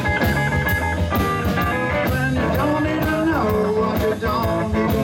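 Live blues band playing an instrumental stretch between vocal lines: electric guitar notes that slide and bend in pitch over electric bass and a drum kit keeping a steady beat on the cymbals.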